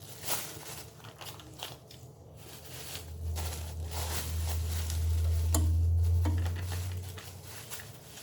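Irregular rustling and crinkling handling noise with scattered clicks, as of packaging being moved about, while a low hum swells up in the middle and fades again.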